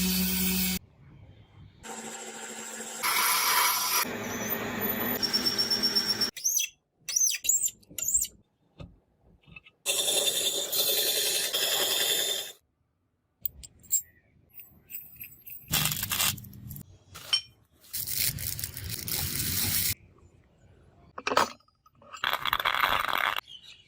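Metalworking sounds cut together in short pieces: stretches of metal scraping and rubbing, broken up by quick clinks and taps, each piece starting and stopping abruptly.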